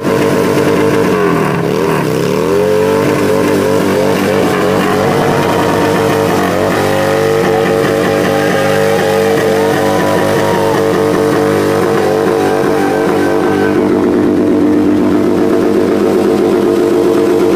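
Harley-Davidson V-twin engine held at high revs in a burnout, the rear tyre spinning against the hood of a car. The revs drop and climb back about one to two seconds in, then hold at a steady high howl.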